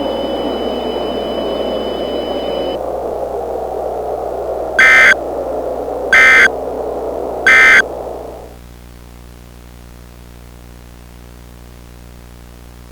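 Emergency Alert System broadcast ending: radio static with a faint high whine that stops about three seconds in. Then come three short EAS end-of-message data bursts, harsh digital screeches about a second and a half apart, marking the end of the alert. After them the static gives way to a quieter steady electrical hum.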